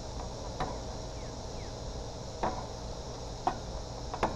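Steady chorus of insects, likely crickets, with a few short, sharp clicks scattered through it.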